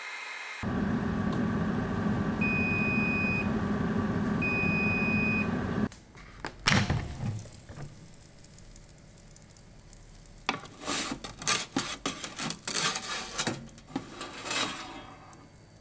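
Countertop air fryer oven's fan running with two long beeps marking the end of cooking, then the fan stops about six seconds in. A sharp click follows, then a wooden spatula scrapes and taps on the metal tray as the toast is lifted.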